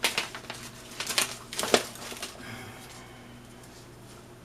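Paper packing being handled and crinkled, a few sharp crackles and taps in the first two seconds, then it goes quiet with only a faint steady hum.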